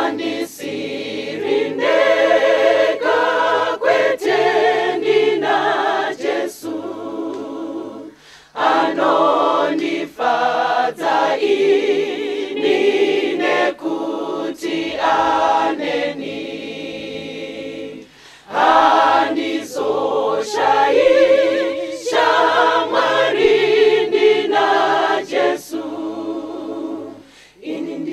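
A choir singing a gospel song in short phrases, with brief pauses between the sung lines.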